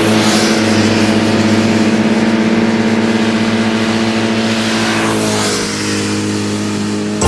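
A car engine sound effect: a steady, loud engine drone over a hiss, holding one pitch and thinning out about five seconds in.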